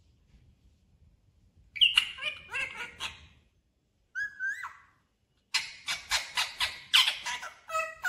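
Rose-ringed parakeet squawking and chattering in short bursts of pitched, gliding calls. The calls start about two seconds in, and in the second half they become a quick run of sharp squawks, several a second.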